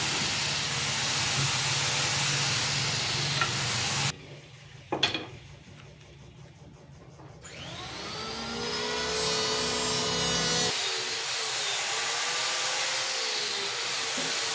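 An electric power tool runs on wood. It stops abruptly about four seconds in, then come a couple of knocks. The motor spins back up with a rising whine and runs on, working the wood again near the end.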